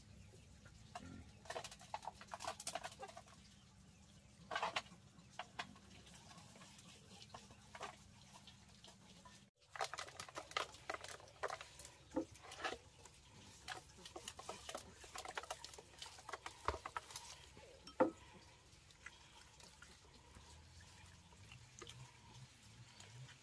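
Faint, scattered clicks, taps and scrapes of hands handling fish in an aluminium basin, rubbing chili seasoning into two scored fish and now and then knocking against the metal.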